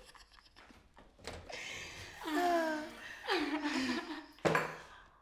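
Two young women laughing, in two bursts that fall in pitch, starting about two seconds in. About four and a half seconds in there is a single sharp smack.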